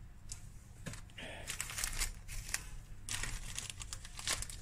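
A plastic packet of dried parsley being handled and opened, crinkling in quick irregular rustles from about a second in.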